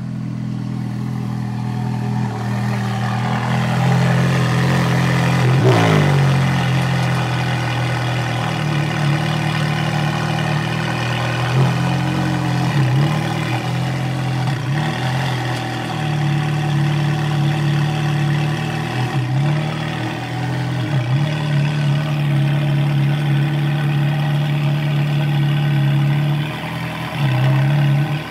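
Ferrari F430 Scuderia's V8 engine idling steadily through its exhaust, with a rev that falls back to idle about six seconds in and a few short throttle blips later.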